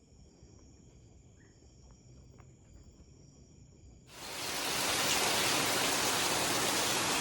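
Faint, steady chirring of jungle insects, several high tones held together. About four seconds in, it is cut off by a loud, steady rushing hiss like heavy rain.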